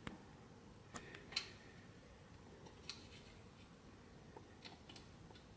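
Faint, scattered small clicks and taps from hand tools working an LED off a TV backlight LED strip: about five light ticks spread over several seconds, the loudest a little over a second in.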